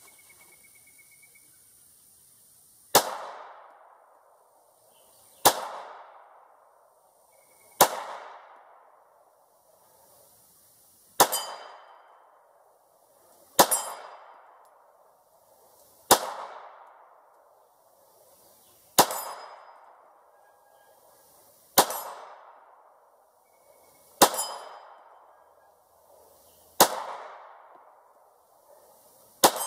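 Ruger 9E 9mm pistol fired eleven times in slow, aimed fire, about one shot every two and a half seconds, each shot trailing off in a long echo. Several shots are followed by the ring of the steel target plate being hit.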